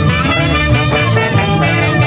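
Instrumental break of a Peruvian huayno: a clarinet plays the melody over Andean harp and a steady low bass.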